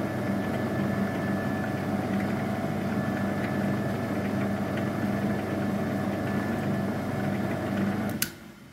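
Workshop machine's electric motor running with a steady hum, then switched off with a click near the end, its sound dying away.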